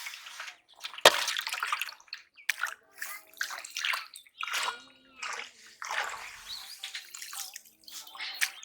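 Shallow water sloshing and splashing in irregular bursts as hands work through it, with one sharp splash about a second in.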